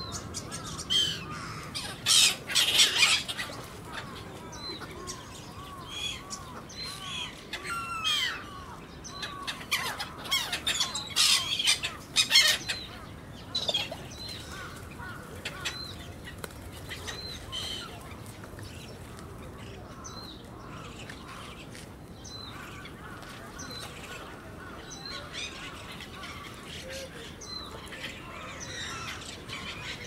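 A flock of black-headed gulls calling with short, repeated cries as they crowd in to be fed. There are loud flurries of calling and wing noise about two seconds in and again around ten to thirteen seconds in, and thinner calling after that.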